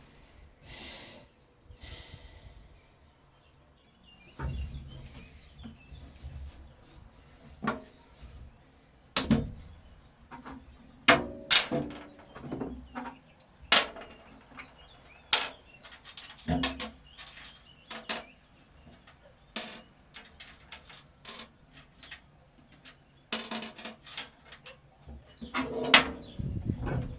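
Irregular clicks and knocks of hand work, a few of them with a short metallic ring near the middle.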